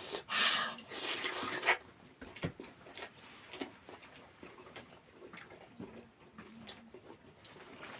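Close-miked eating of chicken curry and rice: a loud breathy hiss for about the first second and a half, then faint chewing clicks and mouth smacks.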